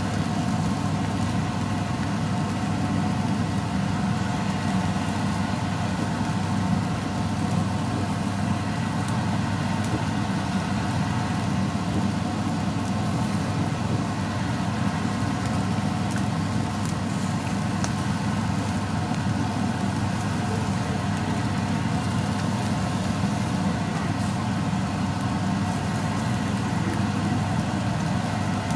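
Steady low machine hum, like a motor or fan running, with a faint hiss over it and a few light clicks.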